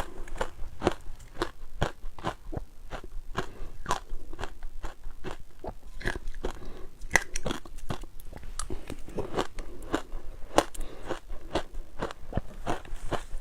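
Ice cubes being bitten and chewed close to the microphone: a rapid, continuous string of sharp crunches and cracks.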